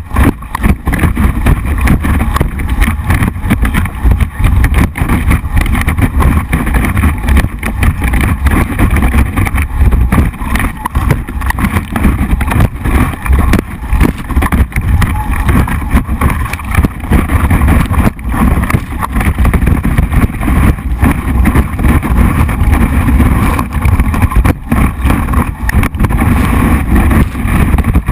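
Water rushing and spraying under a planing wakeboard and wind buffeting the microphone of a board-mounted GoPro in its waterproof housing: a loud, dense rush, heavy in the low end and choppy.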